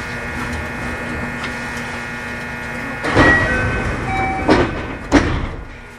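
Inside a JR West 521 series electric train car: a steady rumble with an electrical hum of several steady tones. About halfway through come three loud, brief rushing thumps, the last near the end.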